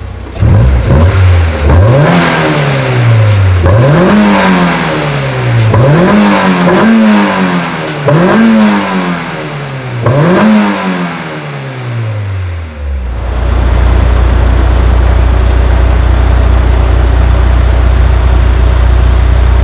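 Honda S2000 (AP2) 2.2-litre four-cylinder engine breathing through an ASM I.S.Design aftermarket silencer kit, revved in about six free-revving blips, each rising quickly and falling back slowly. About two-thirds of the way in, it settles to a steady idle.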